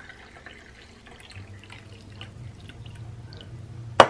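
Greek coffee poured from a small copper briki into a ceramic mug, the liquid trickling and dripping quietly. A single sharp knock sounds near the end.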